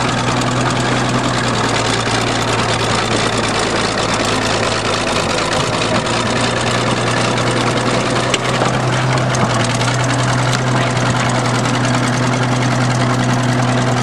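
Bulldozer's diesel engine running steadily with a deep, even drone.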